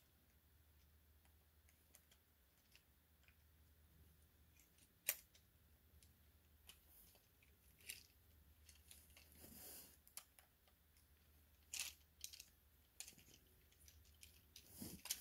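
Near silence broken by a few sharp, scattered clicks, the loudest about five seconds in, and a brief rustle a little past halfway, typical of small objects being handled.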